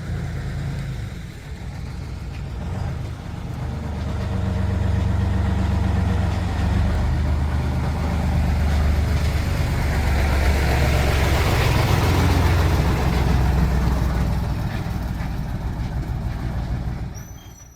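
A motor vehicle's engine running with a steady low rumble that grows louder about four seconds in and fades away near the end.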